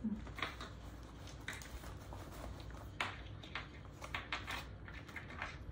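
Scattered light rustles and soft clicks of hands handling cross-stitch kit materials and a vinyl-fronted zippered project bag on a tabletop.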